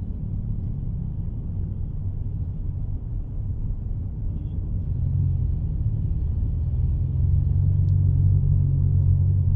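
Low, steady rumble of a car's engine and tyres heard from inside the cabin while driving, growing a little louder from about halfway through.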